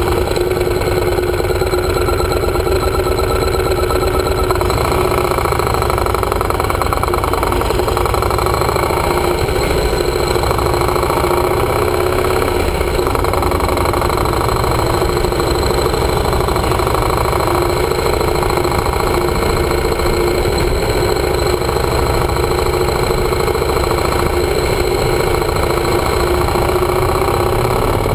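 Yamaha motorcycle engine running steadily while riding at low road speed.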